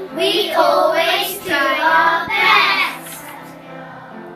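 A group of young children singing together for about three seconds, then quieter background music.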